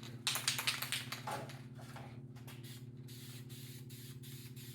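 Aerosol can of sandable flat black primer in use: a quick run of short spurts in the first second or so, then fainter ones, over the steady hum of an exhaust fan.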